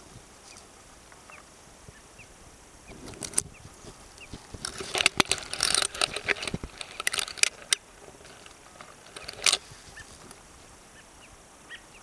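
Conifer branches and needles rustling and crackling as they are pushed aside and brush close to the microphone, in loud bursts through the middle. Faint short high chirps come and go throughout.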